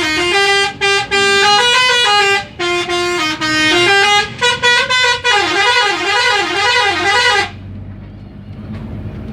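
A bus's telolet musical horn playing a tune of stepped, held notes, then a warbling siren-like trill. It cuts off suddenly about three-quarters of the way through, leaving the low rumble of the bus's engine and road noise.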